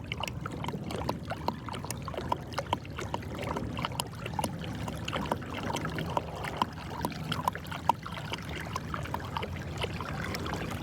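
Water trickling and splashing along the hull of a kayak moving under electric trolling-motor power at speed 3, many small irregular splashes over a low steady hum.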